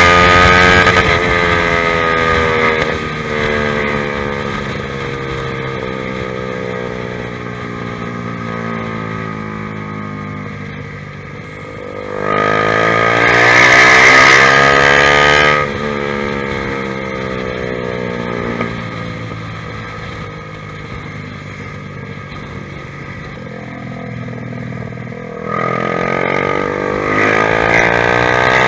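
Honda CBR150R's single-cylinder engine through a ProLiner TR1-R aftermarket exhaust. The revs slide down at first, then about twelve seconds in they climb steeply to the loudest point and fall away again, rising once more near the end.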